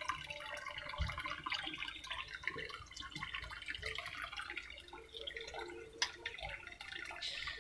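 Tap water running and trickling into a small fish pond, with dripping and small splashes at the surface. A dull knock comes about a second in.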